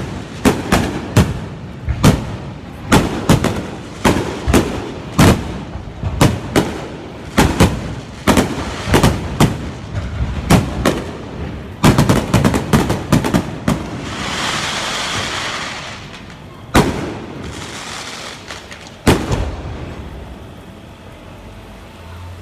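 Fireworks display: a rapid barrage of shell bursts, about two sharp bangs a second. About fourteen seconds in this gives way to a couple of seconds of crackling, then a few spaced single bangs as it dies down.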